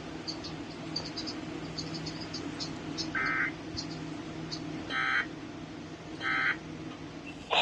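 Three short bursts of warbling data tones, each about a third of a second long and spaced a second or two apart: the Emergency Alert System end-of-message (EOM) code sent after the warning. Under them run a low steady hum and faint high chirping.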